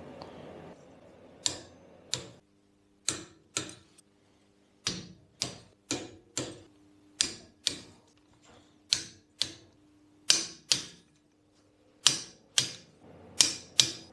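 Ratchet torque wrench clicking in single sharp clicks, often in pairs about half a second apart, as the cylinder head nuts are tightened down.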